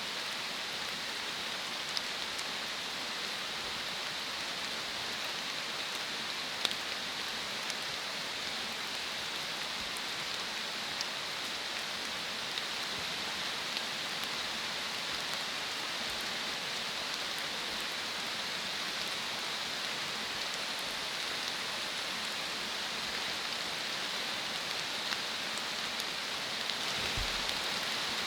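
Steady rain falling, an even hiss with a few sharper single drop hits scattered through.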